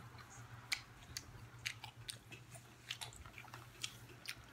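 Faint, close chewing of Burger King Cheetos chicken fries: scattered small crunches and mouth clicks.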